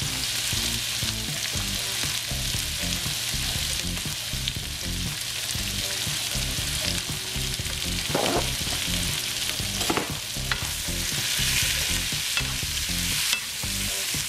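Onions, carrots, celery and snow peas sizzling steadily in a hot pan with soy sauce while being stirred, the utensil now and then knocking and scraping against the pan.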